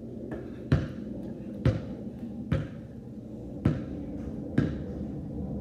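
A basketball bouncing on a concrete driveway: five sharp thuds about a second apart.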